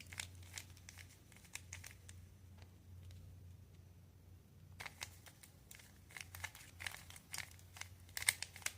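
Faint clicking and rattling of a plastic Rubik's cube as its layers are turned quickly. A scatter of clicks pauses for a couple of seconds midway, then a denser run of turns follows, with the loudest clicks near the end.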